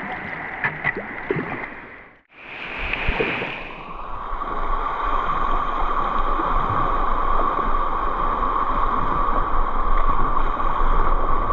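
Steady rush of river current around a kayak. The sound cuts out abruptly about two seconds in, then the rushing water comes back and grows louder.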